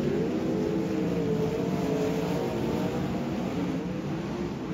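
Several sprint cars' V8 engines racing together, their pitch rising and falling as they lift and get back on the throttle. The sound fades slightly toward the end.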